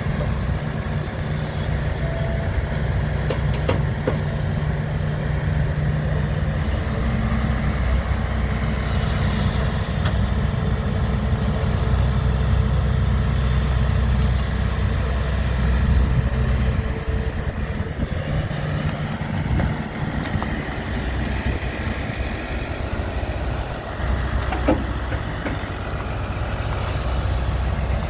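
Diesel engines of a tracked excavator and a farm tractor running steadily while the excavator digs wet sediment and loads it into a tipping trailer; the engine note shifts up and down as the excavator works, with a couple of short knocks.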